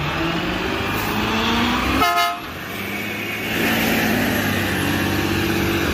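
Rear-loading garbage truck's diesel engine running as it drives on a wet road, with a short horn-like toot about two seconds in. The engine note builds again from about three and a half seconds.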